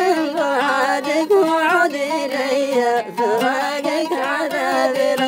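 Arabic song in the Mashqasi singing style: a solo voice sings long, wavering melismatic lines over instrumental accompaniment.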